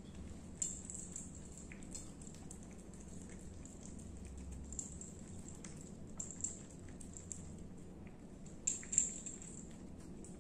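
Small jingle bell on a cat's collar tinkling in short bursts every second or two, loudest near the end, as the cat eats wet food off a plate. Soft licking and chewing sounds come in between.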